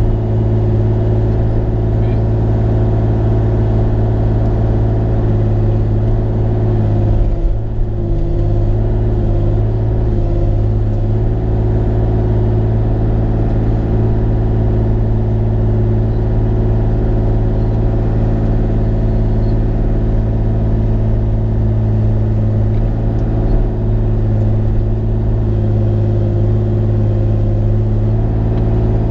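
Bobcat E35i R2 mini excavator's diesel engine running steadily under work, a loud, even hum with a brief wobble in its note about seven seconds in.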